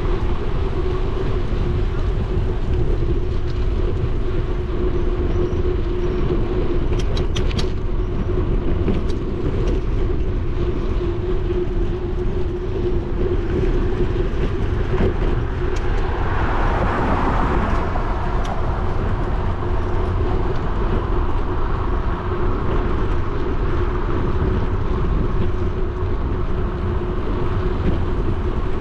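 Wind rumbling on a bicycle-mounted action camera's microphone while riding, over a steady hum from the bike, with a few faint clicks. A little past halfway, a louder swell comes from a car passing on the road alongside.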